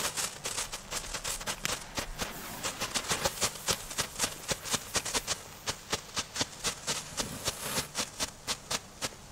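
Nico Strobe Flash strobe fountains burning on paving stones, giving a fast, irregular string of sharp pops, several a second, with no letting up.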